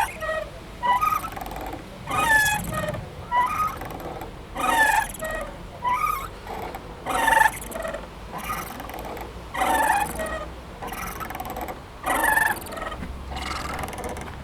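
Playground swing squeaking rhythmically as it swings, with a louder squeal about every two and a half seconds and a fainter one in between on the return stroke.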